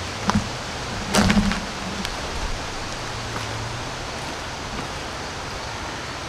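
Steady hiss of outdoor background noise, broken by a short click near the start and a louder knock about a second in.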